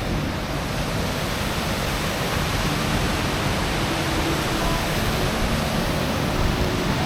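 Pistyll Rhaeadr, a tall waterfall, pouring steadily: an even rushing noise, growing a little louder partway through.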